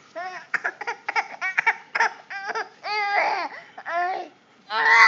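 A baby squealing and babbling happily in a high-pitched voice. It starts with a quick run of short syllables, then gives a few longer drawn-out squeals, the loudest near the end.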